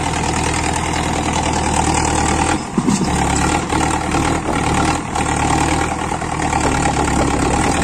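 Farm tractor's diesel engine running hard under heavy load as it pulls a soil-filled trolley out of soft sand, the front wheels rearing up. The sound is a steady engine note with a brief dip about three seconds in.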